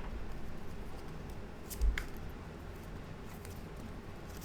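Tarot cards being handled on a table: faint scattered clicks and rustles, with one soft thump and a click about two seconds in.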